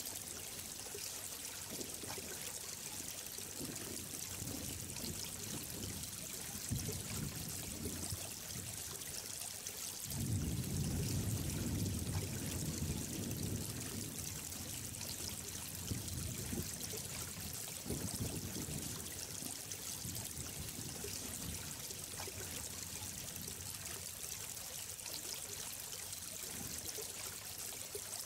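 Running water flowing steadily, an even rushing hiss, with a deeper, louder surge for a few seconds near the middle.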